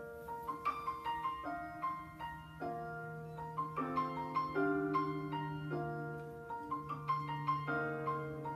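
Background music: a piano playing slow chords, each chord struck and left to ring and fade, over a steady held low note.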